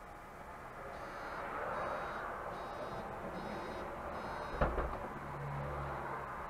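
City bus door-closing warning beeping five times, about one beep every three-quarters of a second, then the doors shutting with a thump about four and a half seconds in. A low engine hum follows.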